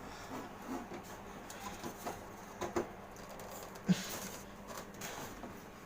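Scattered light clicks and taps of metal parts and hand tools being handled during assembly, with one sharper knock about four seconds in.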